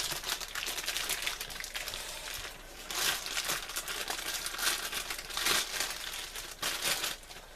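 Packaging crinkling and rustling in the hands as a small item is unwrapped, in irregular handfuls with louder bursts about three seconds in and again near the end.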